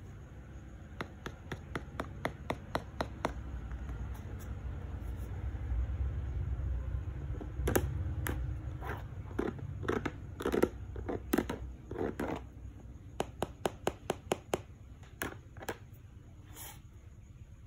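Fingers tapping, scratching and rubbing on an ANTA Shockwave 5 basketball shoe's rubber outsole and plastic midfoot plate as it is turned in the hands: sharp clicks and scrapes, a short run and then a longer, denser one, over low handling rumble.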